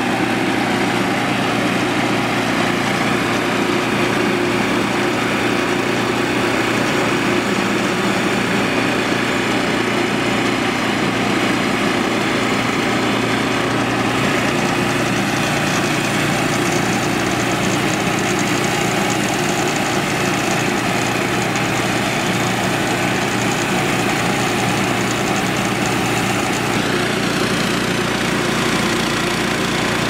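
Woodland Mills portable bandsaw sawmill with its 9.5-horsepower engine running steadily under load while the band blade cuts lengthwise through a log, the head pushed slowly along.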